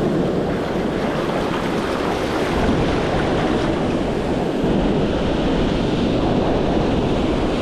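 Shallow ocean surf washing in and out over the sand at the water's edge, a steady rushing wash.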